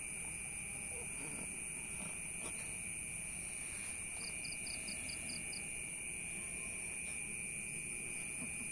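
Night insects: a steady high-pitched chorus, with a short run of rapid chirps, about four a second, around four seconds in.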